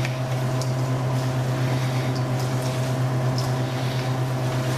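A steady low electrical hum, as from a kitchen appliance or fan. Under it are faint wet squishing and light ticks of sliced raw beef being mixed by gloved hands in a stainless steel bowl.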